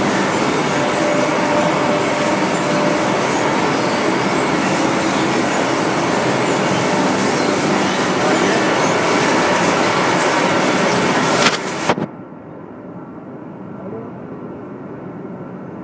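Industrial nut roasting machine running with a steady mechanical noise and faint humming tones. About twelve seconds in it cuts off abruptly to a quieter, duller steady noise.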